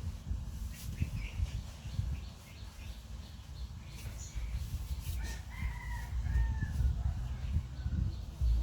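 A rooster crows once, a pitched call in several linked parts lasting about two seconds, starting about five seconds in, over a constant low rumble.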